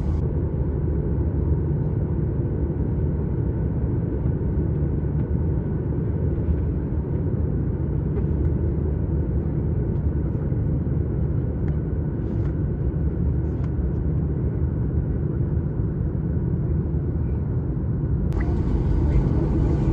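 Steady low rumble inside the cabin of a Boeing 737-800, its jet engines running at low power while it waits in the departure queue. The sound widens and grows a little louder about 18 seconds in.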